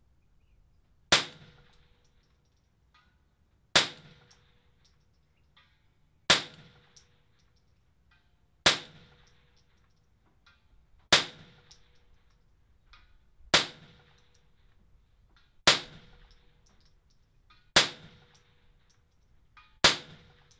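Ruger 10/22 semi-automatic .22 LR rifle firing nine shots at a steady pace, about one every two and a half seconds, each followed by a brief faint ring.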